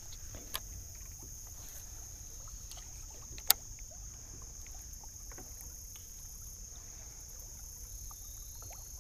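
Quiet ambience from a kayak on a river: a steady low rumble and a steady high-pitched hum, with scattered small ticks and one sharp click about three and a half seconds in.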